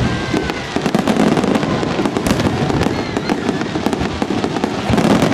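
Aerial fireworks shells bursting in quick succession, many bangs and cracks overlapping with no pause between them.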